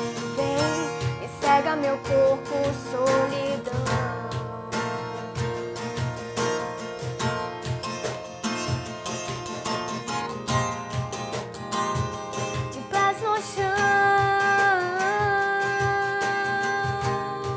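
Acoustic song played live: guitar and hand percussion keep a steady rhythm under a woman's singing voice, which holds one long note near the end.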